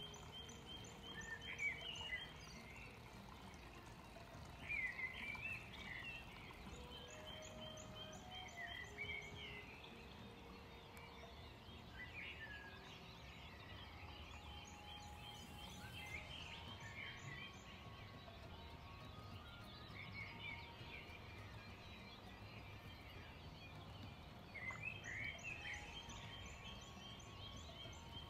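Birds chirping and singing in short repeated phrases, over faint soft background music with slow held notes.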